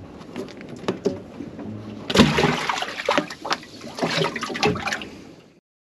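A dusky flathead splashing and thrashing in the water of a boat's live well after being dropped in. The splashing is strongest from about two seconds in and dies away near the end.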